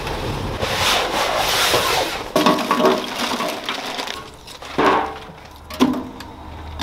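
Lump charcoal poured from a paper sack into the metal hopper of a Masterbuilt gravity-fed smoker, clattering and crunching, then wood chunks dropped in with two sharp knocks about five and six seconds in.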